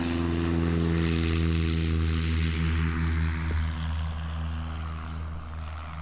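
Propeller-driven light aircraft engine running with a steady low drone, with a rushing hiss that swells about a second in and slowly fades.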